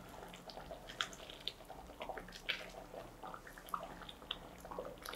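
Thick paneer butter masala gravy simmering in a kadai and being stirred with a silicone spatula: faint, irregular wet plops and bubbling pops.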